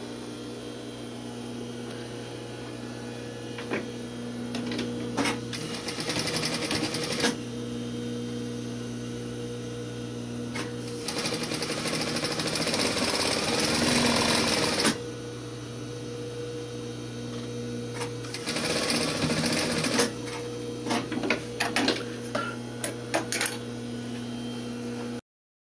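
Sewing machine stitching seams through canvas in three runs of rapid stitching, about two, four and one and a half seconds long, over a steady electric hum. Clicks from handling the fabric come between the runs.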